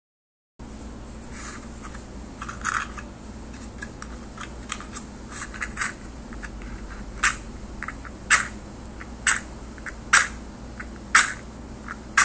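Wooden matches struck again and again on a matchbox's striking strip: a series of short, sharp scratches, irregular and softer at first, then louder ones about once a second in the second half, over a steady low background hiss.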